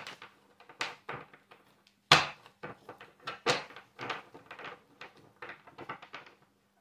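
Oracle cards being handled and shuffled over a wooden table: a run of irregular card clicks and soft knocks, the loudest a thump about two seconds in.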